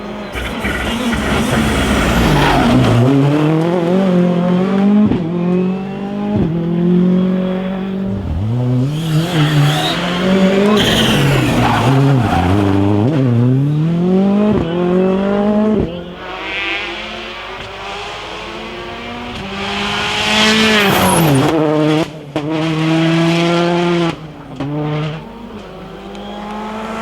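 Rally cars running flat out on a special stage, engines revving up and dropping sharply again and again through gear changes and lifts, more than one car passing in turn.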